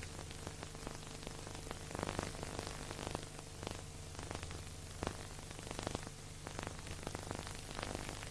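Steady hiss with a low hum and scattered crackles and pops: surface noise with no music or speech.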